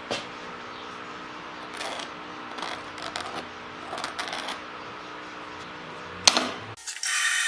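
A workshop machine's electric motor hums steadily, with scattered clicks and knocks of work being handled. There is a sharp knock about six seconds in, and the hum cuts off shortly after.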